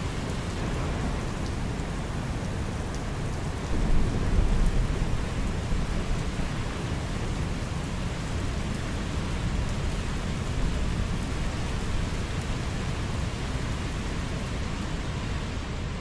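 A river in flood rushing past, swollen by heavy rain and snowmelt, with rain falling: a steady deep rushing noise that swells briefly about four seconds in.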